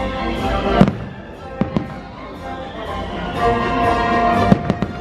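Fireworks show: sharp firework bangs, one about a second in, two a little after and a quick cluster near the end, over the show's music.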